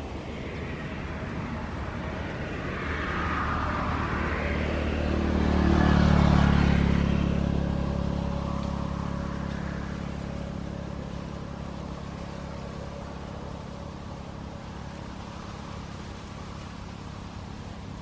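A motor vehicle's engine passing by: a low hum that swells to its loudest about six seconds in, then slowly fades away.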